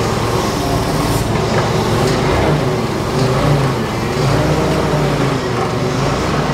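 A large engine running steadily, its pitch rising and falling slightly.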